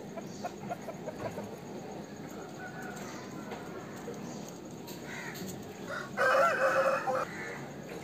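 Aseel roosters calling: a quick run of short clucks in the first second or so, then a short crow lasting about a second, starting about six seconds in, the loudest sound.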